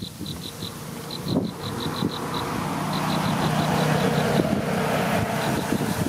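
An insect chirping in a rapid even pulse of high, thin notes, about six a second, in runs of a second or two with short gaps. From about halfway a low rumble swells and grows louder.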